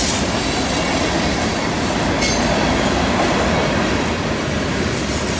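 Freight train tank cars rolling past on a curve: a steady rumble and clatter of steel wheels on the rails, with a thin high-pitched squeal from the wheels on the curve.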